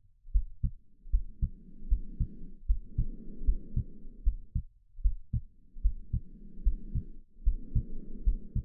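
A heartbeat beating in lub-dub pairs, a little over one beat a second. Slow breathing swells and fades under it as a muffled whoosh every couple of seconds.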